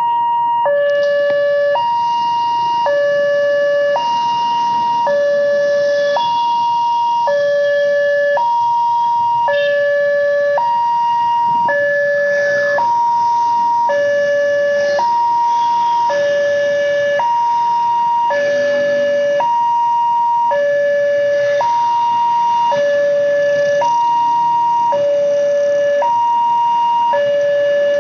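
Railway level-crossing warning siren sounding a two-tone hi-lo pattern, switching between a higher and a lower tone about once a second, steadily and without a break.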